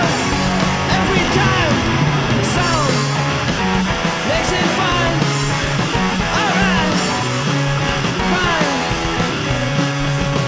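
Rock song played by a band, guitar-led, with a bass line that moves to a new note about every second.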